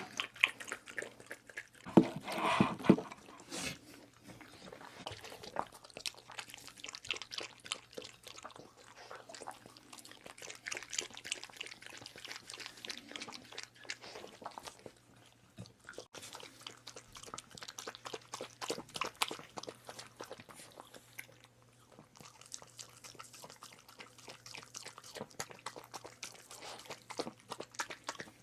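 A puppy eating chicken pasta: quick, irregular wet chewing and smacking, with a few louder knocks about two to three seconds in. A faint steady hum sits underneath.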